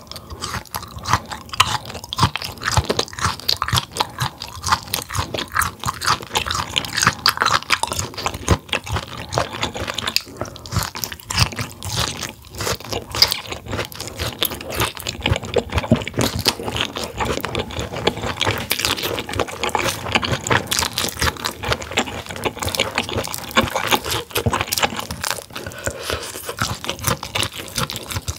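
Close-miked chewing of firm grilled mullet gizzard: dense, irregular crunching bites that go on without a break.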